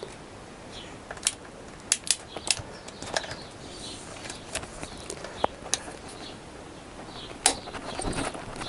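Scattered sharp metal clicks and clanks from a big ratchet on the crankshaft bolt of a Honda CBR1000F engine, worked back and forth against an engine that will not turn over: the engine has seized.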